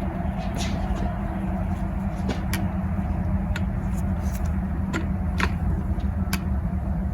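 Scattered light clicks and taps of small carburetor parts and gaskets being handled, over a steady low hum.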